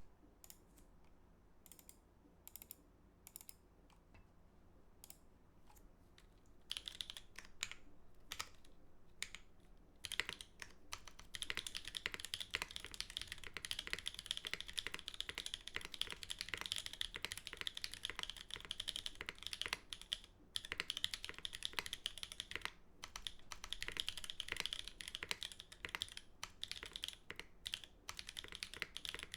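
Typing on a TGR Jane v2 CE mechanical keyboard with Holy Panda tactile switches, a top-mounted carbon fiber plate and GMK keycaps. It starts with scattered single key presses, then about a third of the way in turns into fast, continuous typing.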